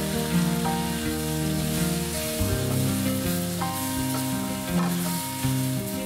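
Tempeh and vegetables sizzling in a stainless steel frying pan as a wooden spoon stirs them, over background music with held notes.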